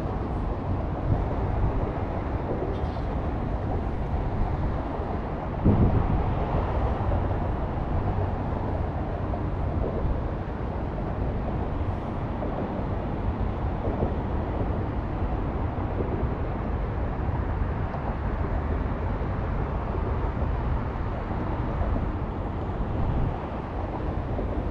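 Strong wind buffeting the microphone: a steady low rumbling noise, with a louder gust about six seconds in.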